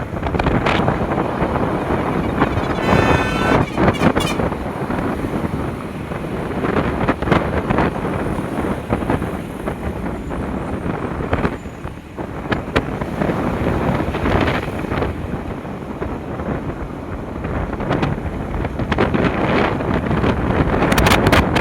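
Wind buffeting the microphone of a motorcycle rider, over a steady rumble of motorcycle and road noise. A short tone cuts through about three seconds in.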